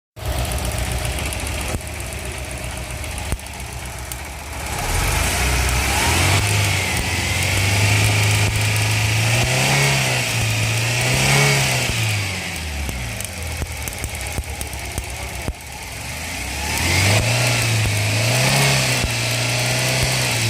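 Car engine idling with a cylinder misfire, its speed rising about five seconds in and then swelling up and down briefly a few times.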